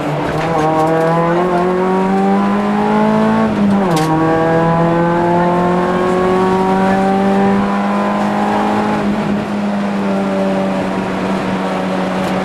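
Rally car engine heard from inside the cabin, accelerating hard with the revs climbing. It shifts up about four seconds in, the pitch dropping sharply, then pulls again at high revs and levels off.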